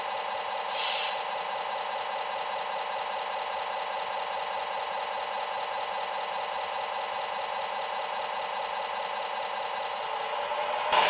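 Steady mechanical drone made of several held tones, with a short hiss about a second in and a louder, brief burst of noise near the end.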